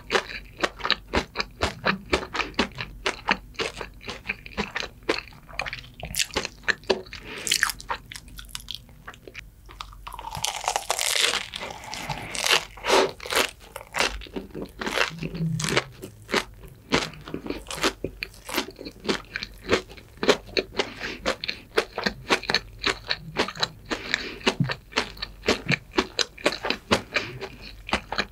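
Close-miked crunching and chewing of a deep-fried, breadcrumb-coated croquette, a rapid run of crisp crackles with a longer, louder noisy stretch about ten seconds in.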